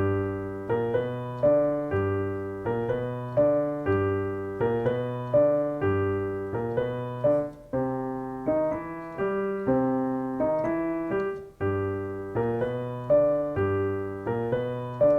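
Piano played with both hands in a blues walking-bass practice pattern: chords struck in a steady even rhythm over a moving left-hand bass line, with two brief breaks.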